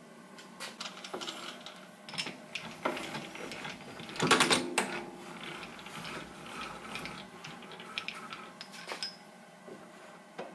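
Sieg SC4 lathe tailstock being slid along the bed and its live centre brought up against a cast-iron cylinder held in the chuck: irregular metal clicks and knocks, with a louder burst of clatter about four seconds in.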